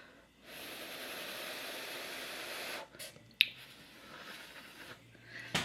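A person blowing on hot food to cool it: one long breath of about two seconds, then a sharp click and a softer, shorter breath.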